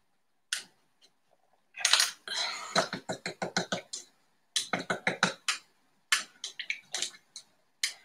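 Paintbrush being rinsed in a small clear water pot, the brush tapping and rattling against the sides in three quick runs of clicks, several a second.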